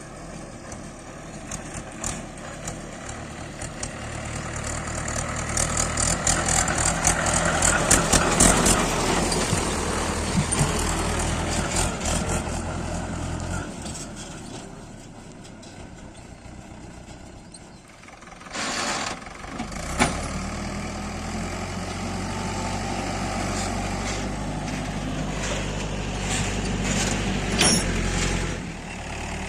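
Heavy diesel machinery of a backhoe loader and tractor working. The engine load rises with clattering and knocking for several seconds, then eases. A short burst of noise comes just before the engine settles into steady running with a few knocks near the end.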